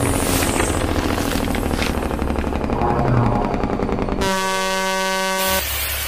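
Intro sound design: a fast, stuttering electronic rattle over deep bass, then about four seconds in a single held truck air horn blast lasting over a second, after which the bass rumble returns.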